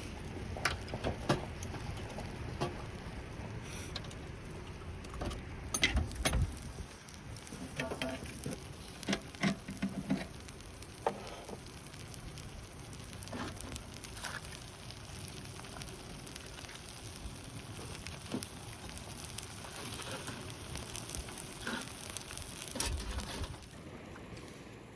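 Clams grilling with a steady sizzle, with scattered clicks and taps of shells and utensils. The sizzle drops away near the end.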